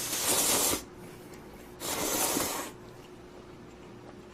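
Two long, airy mouth sounds of a person eating hot noodle stew, each about a second long, the second about two seconds in.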